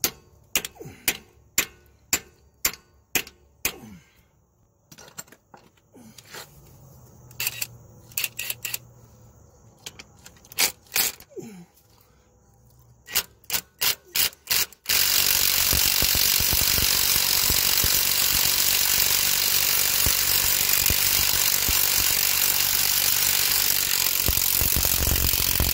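A hand ratchet on a seized exhaust manifold bolt clicks in short, irregular strokes. About fifteen seconds in, a loud, steady mechanical noise from an unseen machine starts and covers everything.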